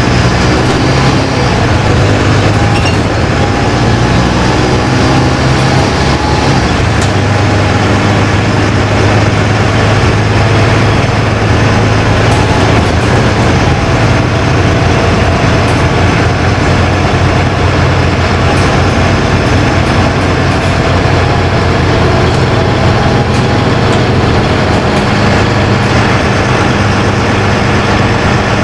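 LiAZ-5292.20 low-floor city bus under way, heard from inside the cabin: a steady diesel engine hum with road and body noise, the engine note rising and falling a little as the bus changes speed.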